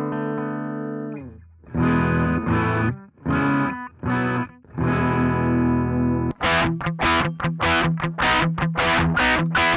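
Electric guitar played through an amp-simulator plugin on the Antelope Audio ZenGo interface. A held chord rings and dies away about a second in, then short chopped chords follow, and from about two-thirds through come quick, repeated strummed strikes at about three a second.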